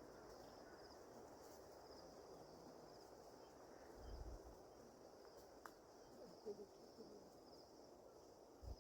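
Faint insects chirping in a steady, high-pitched pulsing trill, with a couple of soft low rumbles, one about four seconds in and one near the end.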